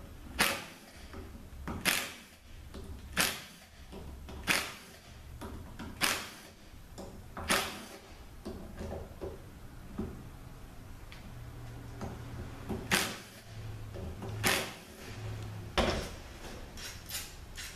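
Bolts on a 45RFE transmission valve body being worked with a cordless screwdriver on a steel bench: a run of sharp metal clacks, about one every second and a half, spacing out through the middle.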